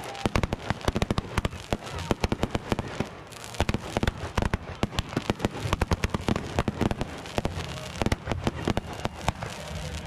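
Fireworks on a table going off together after catching fire: a dense, irregular barrage of sharp cracks and pops, several a second, over a steady hiss and rumble of burning pyrotechnics.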